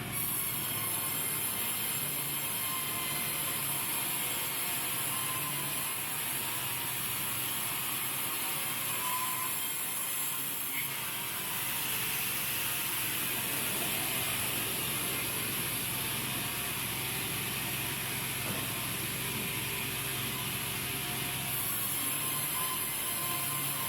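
Sawmill machinery running steadily: a continuous mechanical noise with a hiss and a low hum, shifting slightly about eleven seconds in and again near the end.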